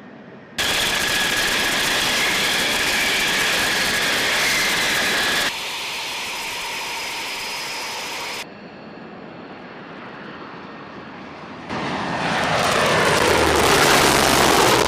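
Military jet aircraft taking off: loud, steady jet engine noise that starts suddenly under a second in and drops in level twice, as separate takeoffs are cut together. About three seconds from the end another jet comes in and grows louder as it passes.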